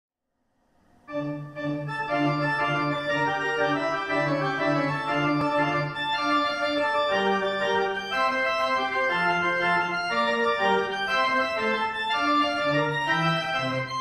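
Pipe organ playing, sustained chords over a pulsing repeated bass note, starting about a second in.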